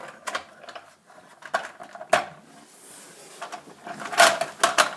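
Hard plastic toy vehicle being handled, its parts clicking and clacking in a scatter of short sharp knocks, busiest near the end.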